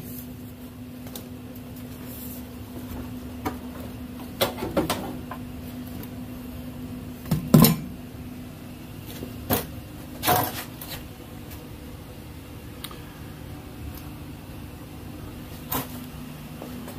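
Steady low hum of running shop machinery, with a handful of scattered knocks and clanks of metal; the loudest knock falls about halfway through.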